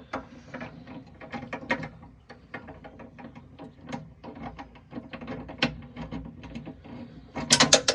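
A metal nut being threaded by hand onto the body of an electronic lock to hold its new cam, making many small irregular metallic clicks and rattles, with a louder run of sharp clicks near the end.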